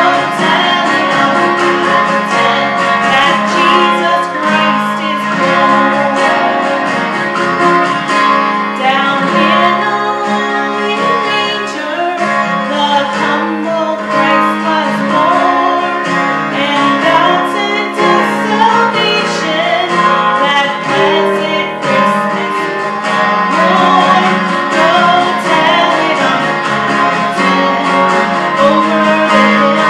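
A woman singing a song into a handheld microphone over instrumental accompaniment.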